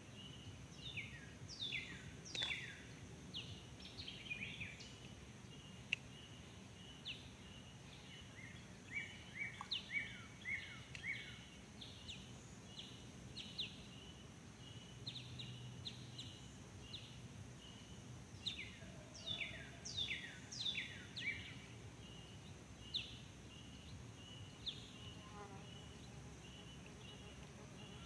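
Faint natural ambience of birds calling, with many quick downward-sweeping chirps in scattered clusters, over a steady pulsing insect trill.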